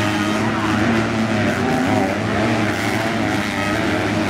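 Motocross dirt bike engine revving on the track, its pitch rising and falling as the throttle opens and closes.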